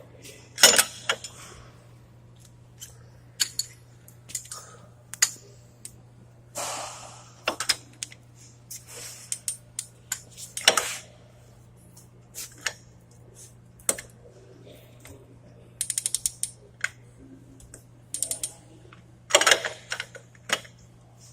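Ratchet of a torque wrench clicking in short runs as a wheel hub jam nut is tightened, with scattered metallic clinks and knocks. A quick run of about six clicks comes about 16 seconds in.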